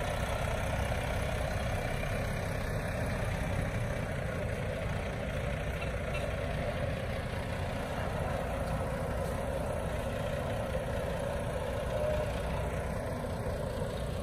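Volvo B11R bus chassis's six-cylinder D11 diesel engine running steadily at low speed as the bare chassis moves slowly.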